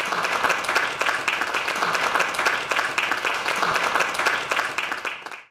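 Audience applauding: a dense, even spread of clapping that fades out quickly near the end.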